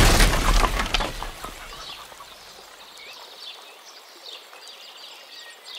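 Film sound of a giant's body crashing to the ground: a loud rumble that fades away over about a second and a half. Faint bird chirps follow.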